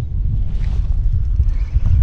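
Wind buffeting the microphone: a loud, irregular low rumble with a few faint clicks over it.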